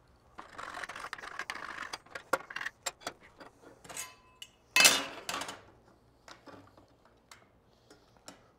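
Aluminium bar stock and a speed square being handled on a perforated steel fixture table: metal sliding and scraping for about two seconds, then scattered clinks and taps, with one louder clatter about five seconds in.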